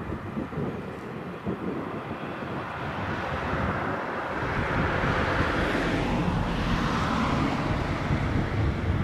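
Distant diesel multiple unit, an Alstom Coradia LINT 41 railcar, running past: an even rushing rumble of engine and wheels on the rails that grows louder from about three seconds in.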